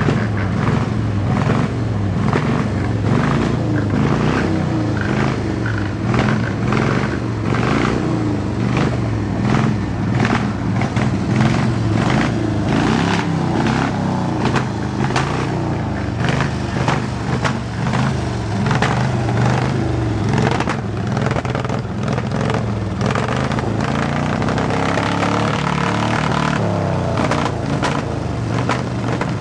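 Several old tractor engines running together. A steady low drone sits under a regular heavy knock of about two beats a second.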